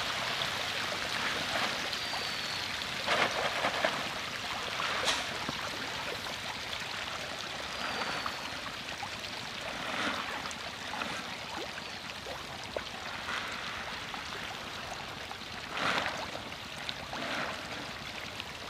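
Thousands of baby magur catfish crowding the shallow pond edge, churning the surface in a steady fizzing splash, with a louder splash now and then.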